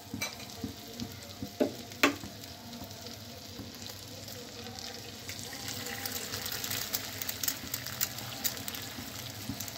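Oil sizzling in a hot pan of stir-fried prawns, beans and onion, with a couple of sharp knocks about two seconds in. An egg goes into the hot oil, and from about five seconds in the sizzling grows louder and crackly as the egg fries.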